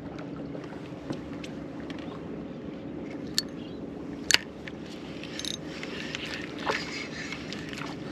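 A small boat's outboard motor running at a steady low hum, with a few scattered clicks and knocks over it, the sharpest about four seconds in.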